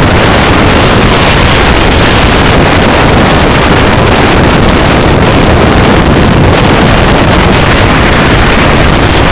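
Storm-force wind blasting straight into the microphone: a loud, steady rush of noise with heavy low rumble and no let-up.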